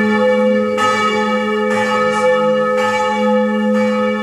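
A bronze church bell ringing, struck about once a second, each stroke renewing a long, sustained hum under a cluster of higher ringing tones.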